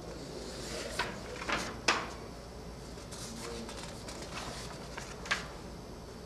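Sheets of paper crackling in a few short, sharp bursts as handheld printed cards are swapped one for the next, over a low steady hum.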